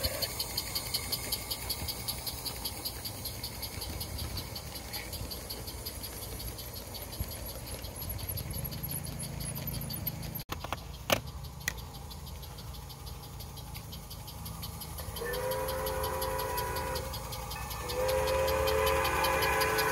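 Large-scale garden railway trains running past: a steady low rolling rumble of the model trains on the track, with a fast, even high ticking. Partway through, a live steam locomotive approaches, and from about three-quarters of the way in a steady pitched tone with overtones sounds, breaking off briefly before it returns.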